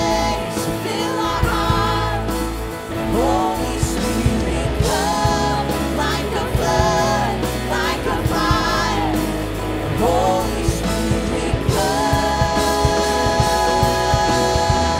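Contemporary Christian worship song performed live by a band: a woman singing lead, with sustained, wavering sung notes, over electric and acoustic guitars and a drum beat.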